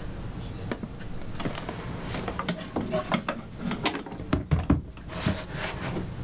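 Typing on a laptop keyboard: irregular clicks and taps over a steady low hum.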